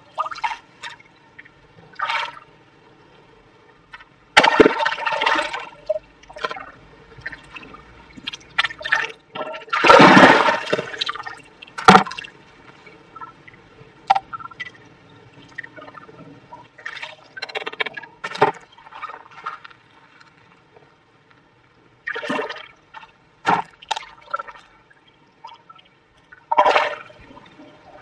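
A hand sloshing and scooping water and wet sand in a small water-filled hole, in irregular splashes with quiet gaps between them. The biggest splash comes about ten seconds in.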